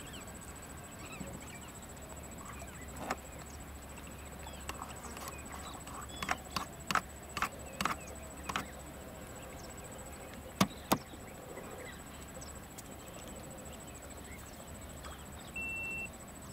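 Quiet pondside ambience with a steady high-pitched whine, a low rumble and faint chirps. About halfway through comes a quick run of sharp clicks, then two louder clicks close together, and a brief beep near the end.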